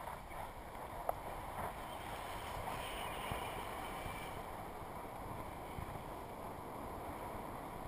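Steady rush of air past a GoPro camera in its housing as a tandem paraglider flies, with a single click about a second in.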